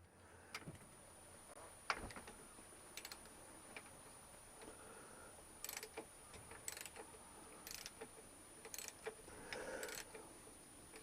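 Ratchet wrench clicking in short runs, about one run a second after a sharp click near the start, as it loosens a motorcycle fork top cap.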